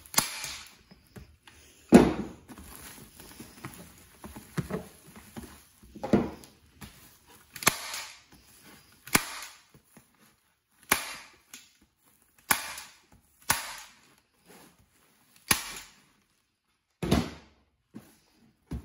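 Bostitch hand staple gun firing staples into the foil facing along a fibreglass duct board seam: about a dozen sharp snaps, one every second or two, with faint rustling between the first few.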